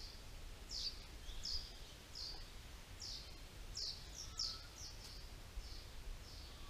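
A small bird calling over and over: about ten short, high chirps, each sliding downward in pitch, some coming in quick pairs.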